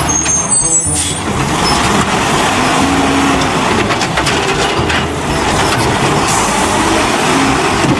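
Garbage truck sound: a loud, steady, noisy din of engine and machinery with no voice or music over it.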